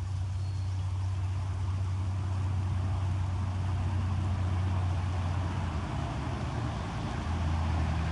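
Rain falling as a steady hiss that grows heavier, over a continuous low engine-like hum.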